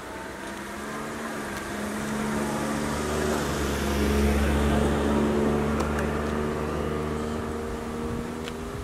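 A car driving past on the road: its engine and tyre noise grow louder as it approaches, peak about four seconds in, then fade away.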